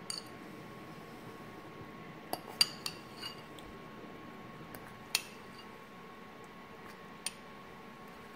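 Metal fork clinking and scraping against a ceramic bowl while cutting food: a few sharp clinks, a cluster of them two to three seconds in and single ones near five and seven seconds.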